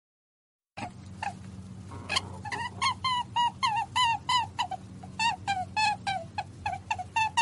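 A bird calling in a rapid run of short, pitch-bending calls, about three a second, starting about a second in over a low steady hum.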